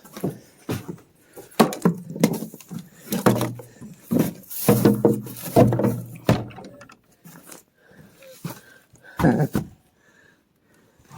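Irregular knocks, thumps and rustling from hay and feed bags being handled in a wooden barn loft, with a few low voice-like sounds in the middle and again near the end.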